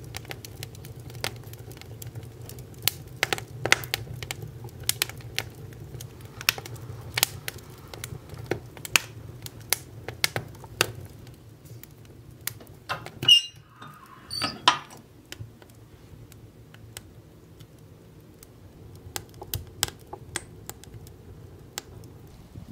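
Wood fire crackling in a wood stove: burning logs and embers giving off sharp, irregular pops and snaps over a low steady hum, with a louder cluster of pops a little past halfway.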